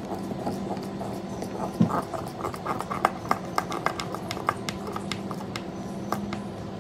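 Wood screws being driven by hand with a manual screwdriver into a 3/8-inch plywood shim: a series of irregular sharp clicks from about two seconds in, stopping near the end.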